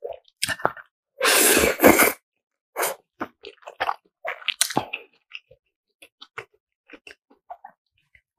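A loud slurp of black-bean instant noodles, close to the microphone, about a second in. Chewing follows, with short, wet mouth clicks that grow sparser.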